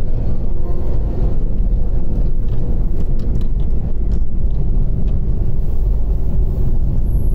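Steady low rumble of a vehicle being driven on a mountain road, with a few light knocks or rattles in the middle.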